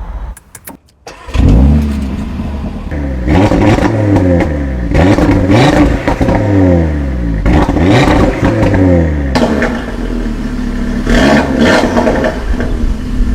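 A 2022 Audi RS3's turbocharged 2.5-litre five-cylinder engine starting up about a second in with a loud flare, then revved up and let fall back several times, settling briefly before another rev near the end.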